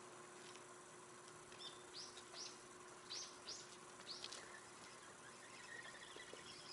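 Faint bird chirps: about six short, high calls, mostly in pairs, in the middle of an otherwise quiet stretch with a faint steady hum.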